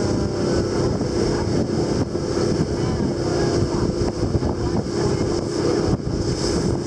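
Boat engine running steadily while the boat is under way, a constant hum over a low rumble, with wind buffeting the microphone.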